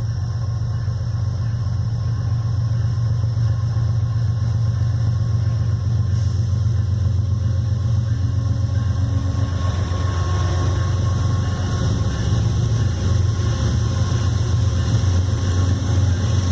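CSX freight train's diesel locomotives approaching at slow speed, a steady low engine drone that grows louder as they near. From about ten seconds in, wheel and rail noise builds over it.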